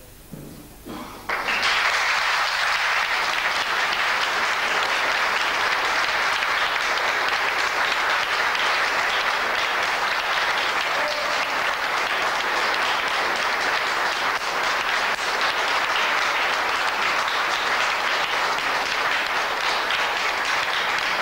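Concert audience applauding: a few scattered claps, then full, steady applause breaking out about a second in.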